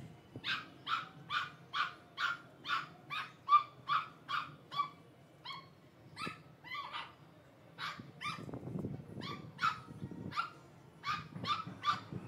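Pug puppy yapping at a rabbit in a long run of high-pitched barks, about three a second, with a couple of short pauses along the way.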